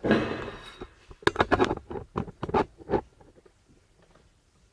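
Handling noise of a handheld camera being moved: a loud rustle at the start, then a run of quick scratchy knocks over about two seconds, then quiet.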